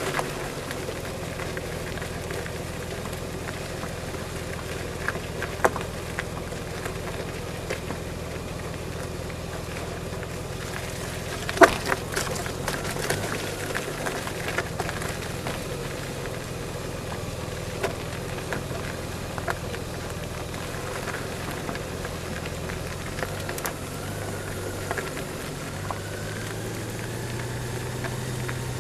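Honda Gold Wing motorcycle running low and steady as its tyres crunch over loose gravel, with scattered small clicks of stones and one sharp knock about twelve seconds in. Near the end the engine note rises a little.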